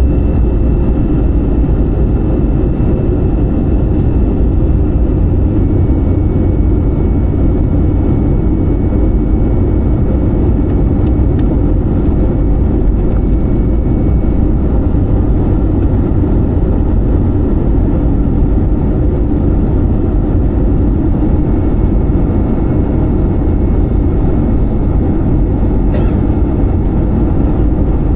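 Airliner cabin noise: a steady, loud rumble of the jet engines and airflow, heard from a window seat inside the cabin.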